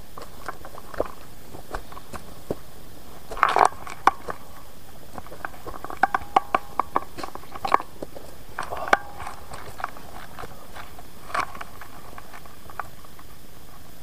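Footsteps on a forest trail, crunching and snapping twigs and leaf litter in irregular steps. The loudest crunches come about three and a half seconds in and again between six and nine seconds.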